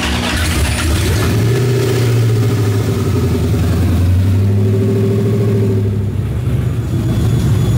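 Freshly rebuilt Corvette ZR1 LT5 V8 running just after its first start, on open headers with no catalytic converters. It runs loudly and steadily, its pitch lifting a little about a second in and again around four to six seconds.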